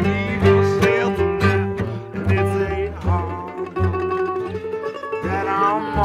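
Acoustic string band playing a slow tune: mandolin and acoustic guitar picked over upright bass notes, with singing coming in near the end.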